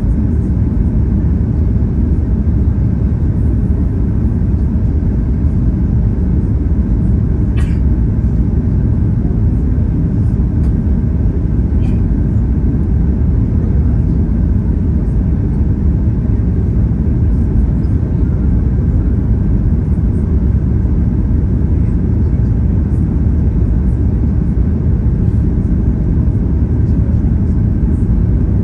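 Steady cabin noise of a Boeing 737 airliner on approach: a deep, even rumble of engines and airflow heard inside the cabin, with a brief click about eight seconds in.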